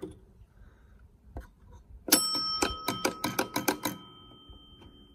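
The large backbox bell of a 1948 Bally Carnival pinball machine is struck rapidly about ten times over roughly two seconds. Its clear ringing tone then fades slowly. The bell is working.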